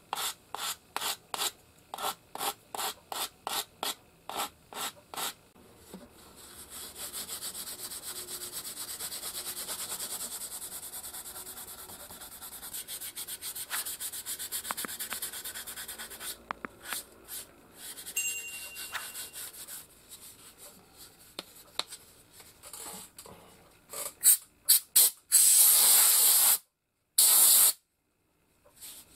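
A small Japanese magnolia (hō) wood case being sanded by hand with a sanding block. It starts with quick back-and-forth strokes, about three a second, then goes into several seconds of steady continuous rubbing. Scattered light scrapes and a few more strokes follow, and the sound cuts out abruptly twice near the end.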